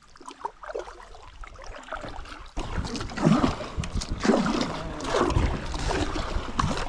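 A kayak running through a shallow creek rapid: rushing, splashing water with knocks against the hull, getting much louder about two and a half seconds in.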